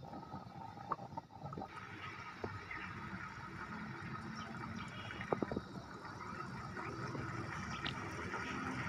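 Tomato paste sizzling and bubbling in hot ghee in a pan, with scattered small pops and crackles, slowly growing louder.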